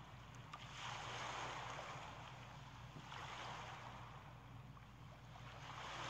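Ocean surf: waves washing in and out in slow swells of hiss, one every two to three seconds, over a steady low hum.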